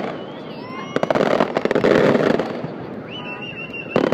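Aerial fireworks shells bursting: a loud report about a second in followed by a second or so of crackling, then another burst near the end. A steady high whistle sounds about three seconds in.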